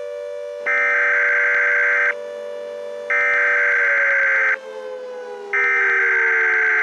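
Three harsh, buzzing bursts of an Emergency Alert System SAME data header, each about a second and a half long with short gaps between them. They play over a civil defense siren holding a steady pitch that starts winding down about four seconds in.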